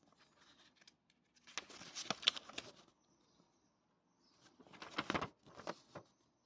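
A paper leaflet rustling and crackling as it is handled and unfolded by hand, in two bursts: one about a second and a half in, one around five seconds in.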